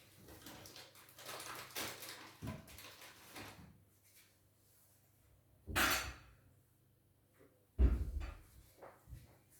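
Handling noises: a run of light rustles and clicks, then a louder scraping burst about six seconds in and a heavy thump about eight seconds in.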